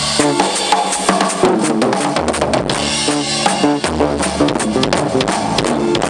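Live rock band playing electric guitars over a drum kit, with a heavy bass coming in about two seconds in. The recording is harsh and distorted from being made close to the PA speakers on a low-quality camera.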